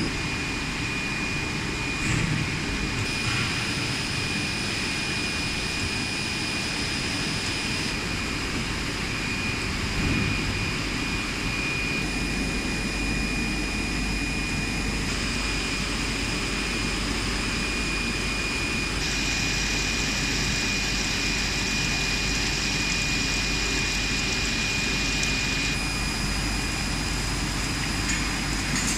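PE foam profile extrusion line running: a steady machinery drone with a constant high-pitched whine.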